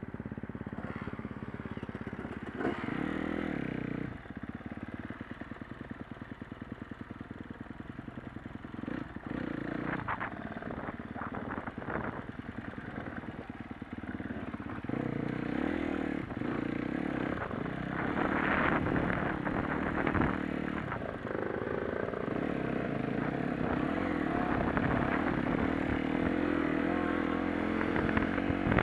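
Dirt bike engine heard from the rider's own machine, revs rising and falling over rough off-road ground, with knocks and rattles from the bike. The engine runs at low, chugging revs through the first half and at higher, louder revs from about midway on.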